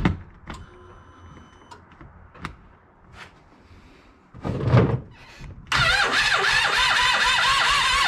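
Polaris RZR 800 engine turned over by its starter with the spark plugs out and the coils unplugged, cranking steadily without firing to prime it after a rod-bearing rebuild; the cranking starts about six seconds in with an even wavering whir. Before it, a few light clicks and a brief louder sound about four and a half seconds in.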